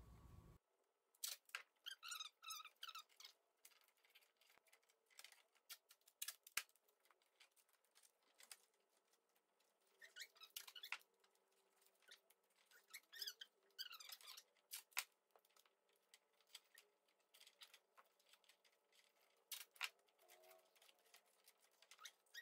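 Faint, scattered squeaks and rips of duct tape being pulled off the roll and pressed around the hose end piece of a tent pole, in short spells of a second or so with pauses between.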